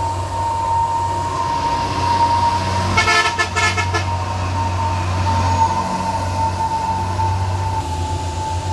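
Heavy diesel truck engine pulling up a steep climb with a steady low drone and a steady high tone over it; a horn sounds in a short, rapidly pulsing burst about three seconds in.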